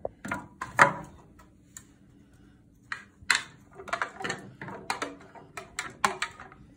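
Light plastic knocks and taps: a red plastic tool scraping and knocking inside a clear plastic container as diced vegetables are pushed out of it. A couple of clicks near the start, then a run of several quick taps from about three seconds in.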